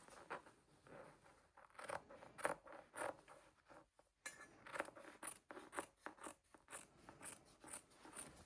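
Scissors cutting through cotton fabric in a run of faint, irregular snips that come more quickly in the second half.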